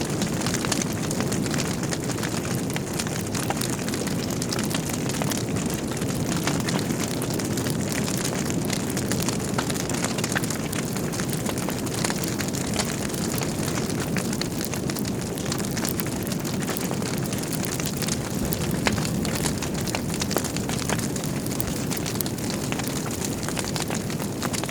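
Log fire burning in a fireplace: a steady low rush of flames with frequent small crackles and pops throughout.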